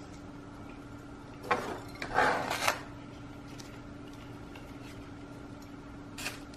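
A terracotta clay pot set down on a plastic tray and shifted, with scraping and rustling for about a second and a half, then a short click near the end. A faint steady hum runs underneath.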